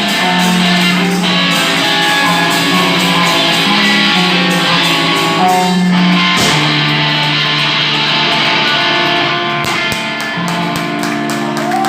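Live rock band playing, with strummed electric guitar chords carrying the music and drum hits.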